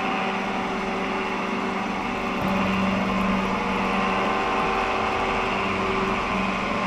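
Drill press running steadily as a slightly bent, cheap twist drill bores into aluminium round stock, with a machine hum made of several steady tones. A lower steady hum comes in about two and a half seconds in and holds.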